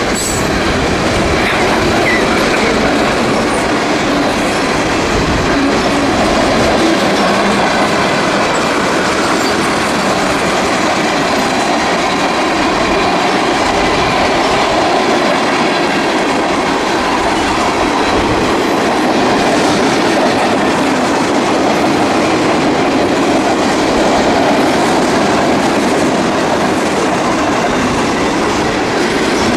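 Freight train cars rolling past at close range, a steady loud rumble of wheels on rail with rhythmic clickety-clack of the wheels over the rail joints.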